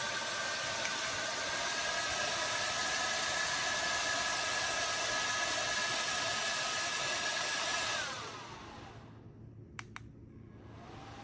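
JISULIFE handheld fan running with a steady rush of air and a motor whine. About eight seconds in it is switched off, and the whine falls in pitch as the blades spin down. Two quick clicks follow, then a faint rising whine near the end.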